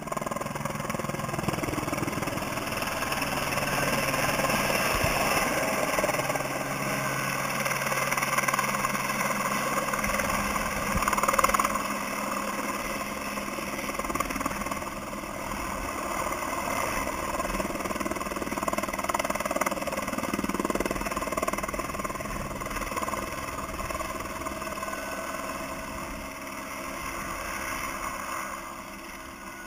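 Helicopter flying overhead with a slung load of stone, its rotor and engine sound steady, swelling to its loudest about a third of the way in and fading near the end as it moves away.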